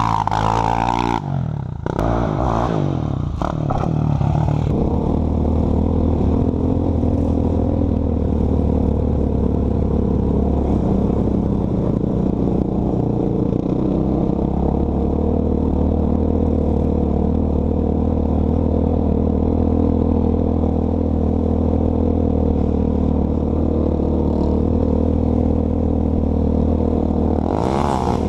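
Honda TRX400EX ATV's big-bore single-cylinder four-stroke engine, fitted with a Pro Circuit T4 exhaust, revved in the first few seconds, then idling steadily, and revved again near the end.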